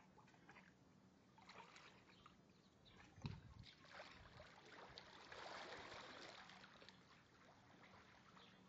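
Near silence: faint outdoor ambience with scattered light clicks, a soft thump about three seconds in, and a brief soft hiss a little later.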